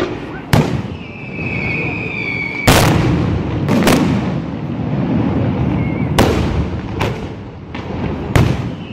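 Aerial firework shells bursting with about six sharp bangs, the loudest near the middle. A high, steady whistle runs for a second and a half just before that bang. A dense rumble of smaller bursts fills the gaps.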